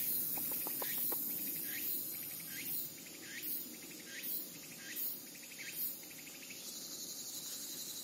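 Insects chirping outdoors: a short pulsing chirp repeated in an even rhythm a little more than once a second, over a faint steady hiss, with a few soft ticks about a second in.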